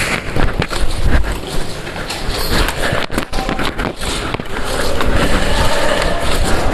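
Steady, loud rustling and rumble with scattered sharp clicks and knocks.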